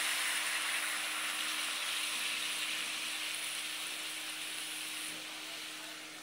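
Food sizzling in a frying pan, a steady hiss that slowly dies down.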